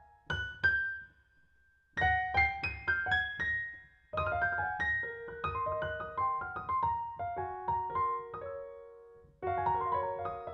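Solo piano music: a gentle run of single notes and chords that pauses briefly about a second in, then carries on, thins out and picks up again near the end.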